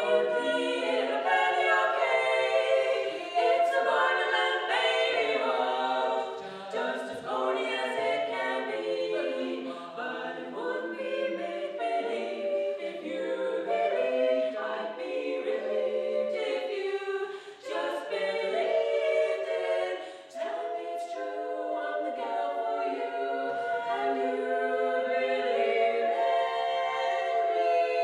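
Women's a cappella quartet singing in four-part harmony, with no accompaniment. In the last several seconds they settle onto a held chord.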